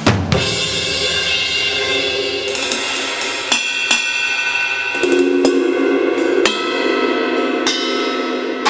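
Sampled acoustic drum-kit cymbals from BFD2, played from a 2Box electronic drum module. A crash at the start, then further cymbal strikes about every second or so, each left to ring into one long shimmering wash.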